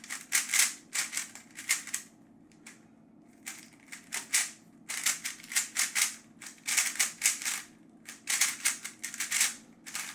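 Plastic magnetic speedcube being turned rapidly by hand: quick runs of clacking turns broken by short pauses.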